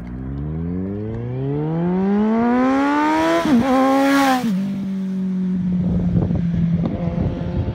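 Kawasaki Z1000 inline-four with a Mivv aftermarket exhaust accelerating toward and past the listener. Its engine note climbs steadily in pitch for about three seconds, dips briefly and is loudest as the bike goes by, then drops in pitch and carries on as a steadier, fading drone. Wind buffets the microphone near the end.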